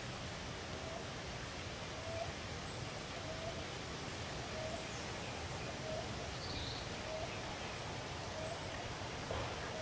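Outdoor natural ambience: a steady background hiss, with a short low chirp repeating about once a second and a few faint high chirps.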